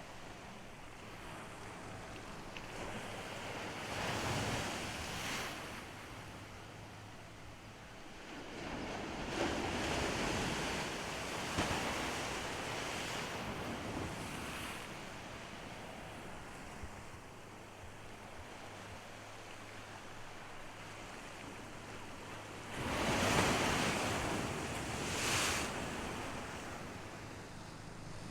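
Ocean surf breaking and washing up the shore, swelling loud three times, with wind buffeting the microphone.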